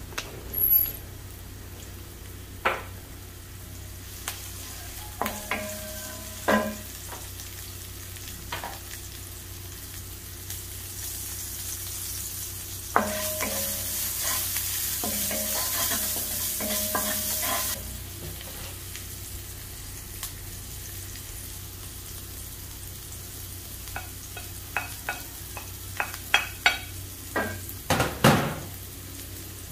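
Chopped red onions sizzling in olive oil in a nonstick wok, stirred with a wooden spoon that scrapes and knocks against the pan now and then. The sizzle grows louder for several seconds midway, and a quick run of spoon knocks comes near the end, the loudest just before it ends.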